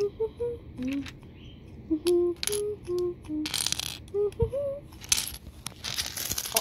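A person humming a little tune in short held notes, with small plastic Lego pieces clicking and rattling against each other; a brief rattle comes about three and a half seconds in, and more clattering near the end as the humming stops.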